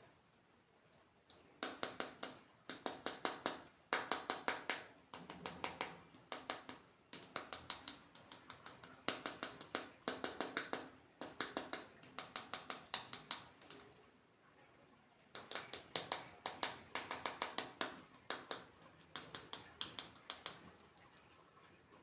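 Quick runs of sharp clicks from handling a plastic toy, each run lasting under a second, repeating many times with a short pause about two-thirds of the way through.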